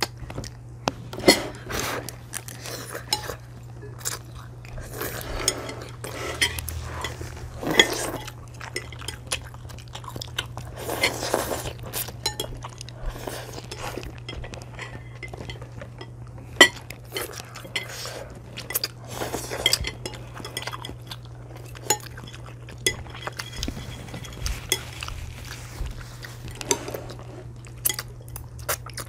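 Chopsticks clicking and clinking against ceramic plates and noodle bowls, in many separate sharp taps, with chewing and the occasional slurp of noodles. A steady low hum runs underneath.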